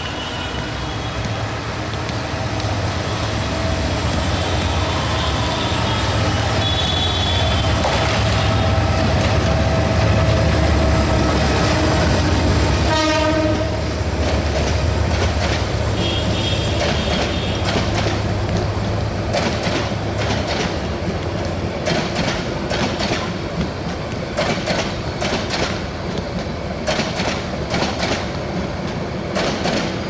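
Diesel-electric locomotive with an EMD 8-645E3C engine running past with a deep, low rumble that builds to its loudest about a third of the way in, with a short horn note near the middle. The passenger coaches then roll by with a steady clickety-clack of wheels over rail joints.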